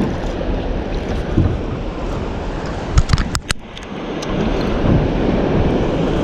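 Wind buffeting the microphone on a small boat, over water washing against the hull, with a few sharp clicks about three seconds in.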